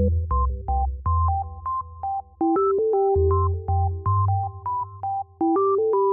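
Background music: an electronic keyboard melody over a bass line, in a regular rhythm.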